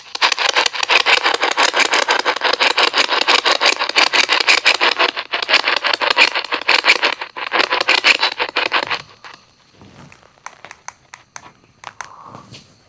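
Spirit box sweeping through radio stations, giving a rapid stuttering hiss of chopped static that cuts out about nine seconds in, followed by a few faint clicks.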